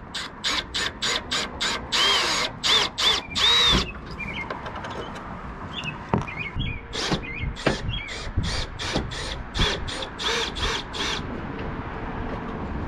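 Cordless drill-driver spinning in short repeated bursts on the screws of a plastic rooftop RV air-conditioner shroud, each burst a brief whine that winds up and down. A quick string of bursts fills the first four seconds, and another runs from about seven to eleven seconds.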